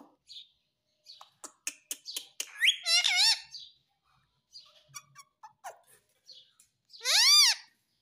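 Indian ringneck parakeet calling: a run of short clicks, then a rising whistle that turns into a warbling call about three seconds in, and near the end one loud call that rises and falls in pitch.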